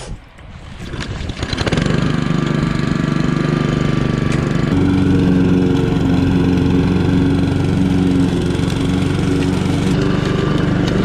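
Old walk-behind gas lawn mower engine, started by pulling a string wound on the starter because the recoil's pull-top is broken, comes up to speed within the first two seconds and then runs steadily. About five seconds in it gets a little louder and holds there while cutting grass.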